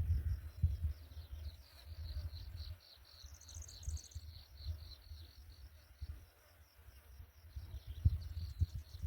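An insect chirping in a steady rhythm, about four or five high chirps a second, with a brief faster, higher trill a little past the middle. Under it is an uneven low rumble with scattered thumps.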